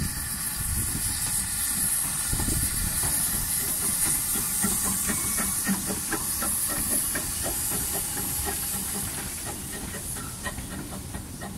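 Narrow-gauge saddle-tank steam locomotive Elidir hissing steam steadily as it runs past with its carriages, its wheels clicking over the rail joints. The sound eases off a little near the end.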